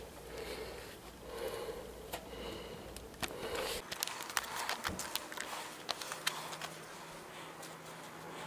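Breathing and sniffing close to the microphone, a soft puff about once a second, for the first half. Then a scatter of small sharp clicks and taps from hands handling parts, with a steady low hum setting in about six seconds in.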